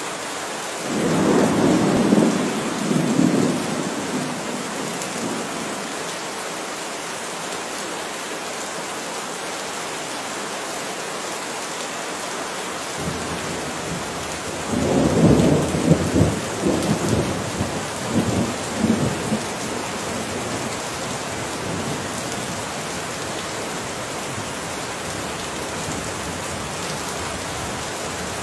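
Heavy rain falling in a steady hiss, with two rolls of thunder rumbling over it: one about a second in lasting a few seconds, and a longer one about halfway through that comes in several surges.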